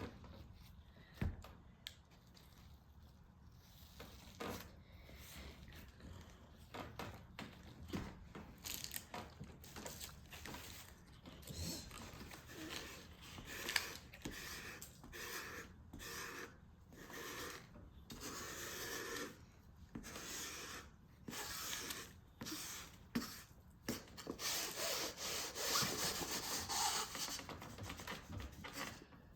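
Clear slime being mixed and handled, giving irregular rubbing and scraping noises that grow louder near the end.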